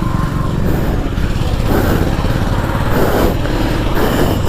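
Mahindra Centuro's small single-cylinder engine running as the motorcycle is ridden, its pitch rising a little a couple of times as it is throttled. A worn-out chain and sprockets give it a rattle like a tin can being dragged along.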